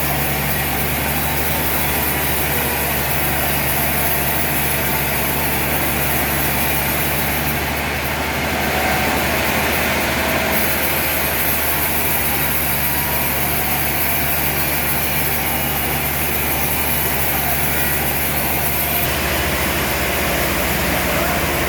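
Heavy sawmill machinery running with a steady, loud mechanical drone, its low hum changing slightly near the end.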